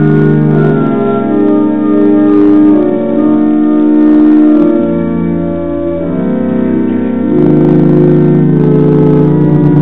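Church organ playing slow, held chords over a bass line, the chords changing every second or two.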